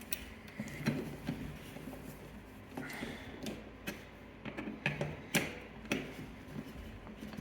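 Scattered light clicks and knocks at irregular intervals over a faint low hum.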